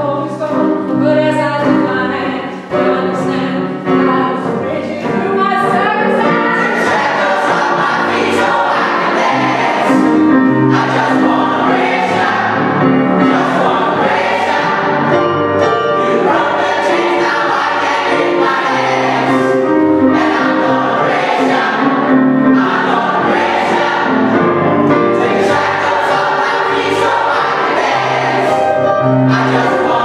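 Mixed gospel choir of women's and men's voices singing together, swelling to full strength about five seconds in.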